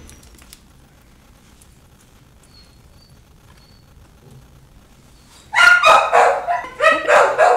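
Puppy barking, a quick run of about five sharp, high-pitched yips starting about two-thirds of the way in.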